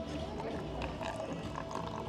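Indistinct background voices mixed with faint music and a steady low hum.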